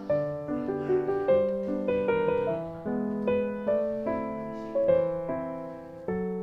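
Background music: a gentle piano melody, its notes struck and fading one after another at a moderate pace.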